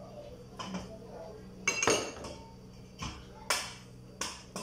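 Metal spoon knocking and scraping against a cooking pot while stirring, about six sharp clinks spread out, the loudest about two seconds in, over a low steady hum.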